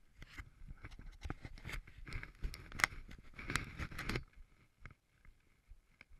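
Close handling noise: a gloved hand rubbing, scraping and tapping on or next to an action camera, dense for about four seconds, then only a few faint clicks.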